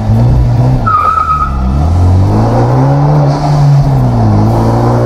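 Hyundai Genesis Coupe's 2.0-litre turbocharged four-cylinder with a high-flow air filter, heard from inside the cabin, accelerating through the gears. The engine pitch climbs, dips at a gear change about a second in with a brief high whistle, climbs again and falls near four seconds with a hiss of turbo pressure being let off at the shift.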